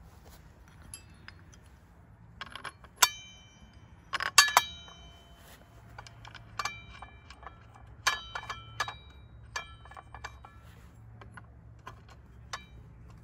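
Steel circular saw blade and its mounting hardware clinking on a brushcutter's gearhead shaft as the blade is fitted. The blade and washer knock against each other in scattered sharp metallic clinks, the loudest about three and four seconds in. Several clinks leave a brief ringing.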